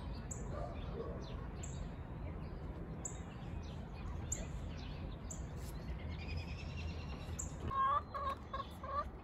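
Domestic chickens calling, with a quick run of four or five clucking notes near the end, over small wild birds' short high chirps repeating about once a second.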